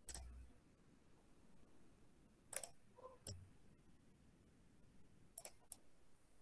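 Faint computer mouse clicks, about five scattered through, over near silence; the first carries a low thump.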